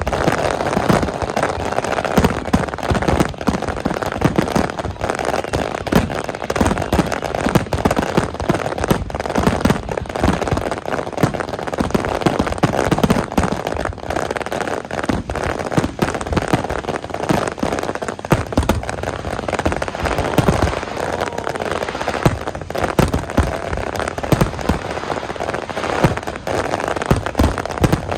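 Fireworks going off without pause: a dense crackle with many sharp bangs.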